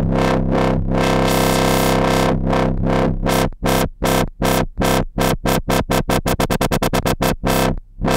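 Dubstep-style wobble bass from a Massive synth preset. It holds a sustained note for about three seconds, then chops into pulses that come faster and faster, with a brief gap shortly before the end.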